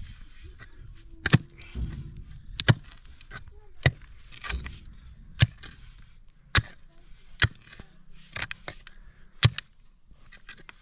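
A short-handled pick strikes into stony soil while a hole is dug, with about seven sharp chunks at uneven gaps of roughly a second or two.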